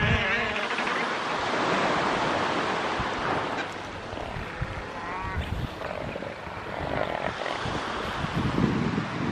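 Southern elephant seals sparring, giving a few short calls and a pulsing, lower call near the end, over steady surf and wind on the microphone.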